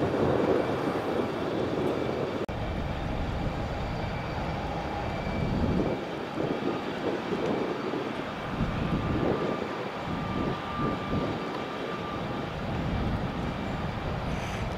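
Aircraft engines running, a steady rumble with a faint high whine.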